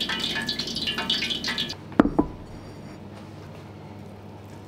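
Hot oil sizzling and crackling in an iron deep-fry pot as battered fritters finish deep-frying, cutting off abruptly about a second and a half in. Just after, two sharp knocks in quick succession, a plate being set down on the counter, then only a low hum.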